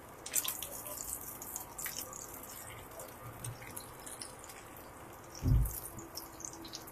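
Hot oil sizzling and spitting in a frying pan with pieces of fish in it, a scatter of small pops and crackles. One dull thump late on.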